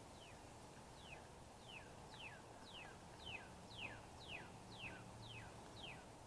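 Faint bird song in the background: a series of about a dozen clear down-slurred whistled notes, about two a second.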